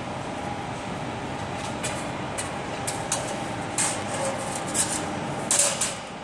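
Sheet metal clinking and scraping in short bursts as it is laid on a press brake's bottom die, the loudest clatter near the end, over a steady machine hum.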